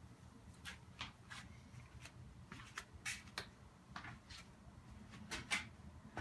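Irregular light clicks and taps of small parts and hand tools being handled while a universal CV boot clamp is set up, about a dozen, the loudest just past five seconds in, over a steady low hum.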